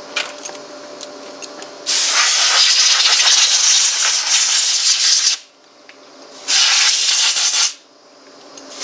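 Compressed-air blow gun hissing in two blasts, a long one of about three and a half seconds starting about two seconds in and a short one of about a second near the end, blowing dirt out of a string-trimmer part.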